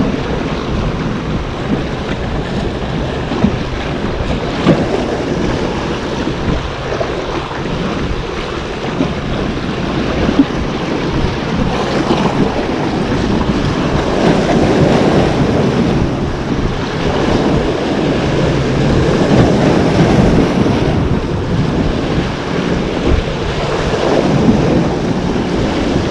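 Rough sea waves breaking and washing over the boulders of a rock breakwater, swelling and falling several times, with wind buffeting the microphone. A few brief knocks stand out early on.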